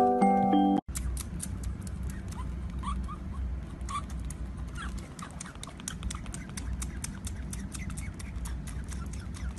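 Baby otter suckling from a milk bottle, with quick irregular wet clicks and smacks, several a second, and a few brief rising squeaks. Glockenspiel-like music plays first and cuts off suddenly under a second in.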